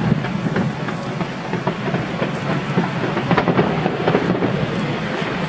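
Fireworks going off in a dense, continuous crackle of many small pops and bangs.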